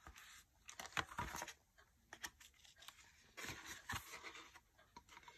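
Faint rustling and scattered light clicks of cardboard packaging and shredded crinkle-paper filler being handled as a boxed serving plate is lifted and turned over, with small bursts around one second in and again near the four-second mark.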